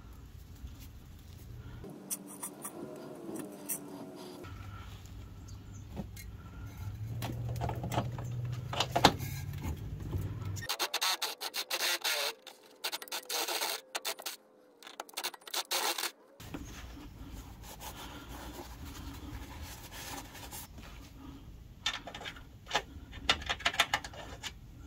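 Cordless drill running a step drill bit through the steel frame rail, cutting and scraping in uneven bursts with a low motor hum, opening the hole to 11/16 in for a rivet nut.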